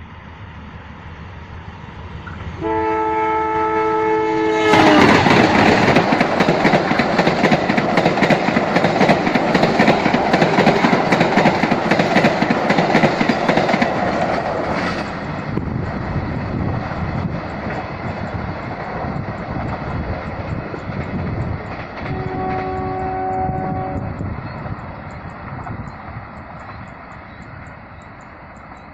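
A passenger train's multi-note air horn sounds for about two seconds, its pitch dropping as the locomotive passes, followed by the loud rumble and rapid clickety-clack of the train going by. A second, shorter horn blast comes later as the sound fades away.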